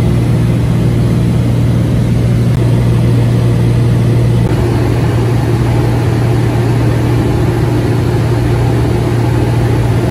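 Single-engine Cessna's piston engine and propeller droning steadily in cruise, heard loud inside the cabin.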